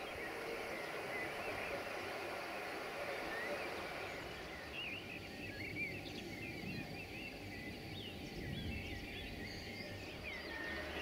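Small birds chirping and singing in short repeated phrases, busier from about halfway, over a steady outdoor background hiss.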